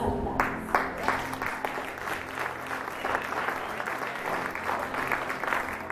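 Congregation applauding, a dense patter of many hands clapping that starts about half a second in.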